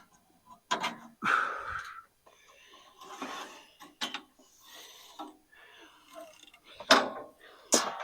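Scattered metal clanks, clicks and rattles of hand work on a bandsaw mill's blade fittings as the band blade is put back on, with a few sharp knocks standing out.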